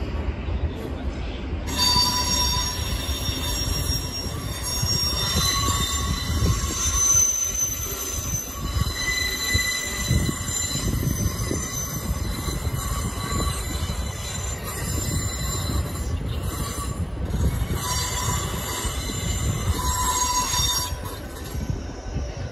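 A train running in a station with its wheels squealing: several high ringing tones over a low rumble. The squeal begins about two seconds in and dies away shortly before the end.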